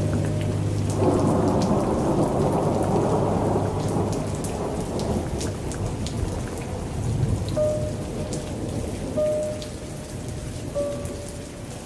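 Steady rain pattering, with a roll of thunder that starts abruptly about a second in and rumbles away over several seconds.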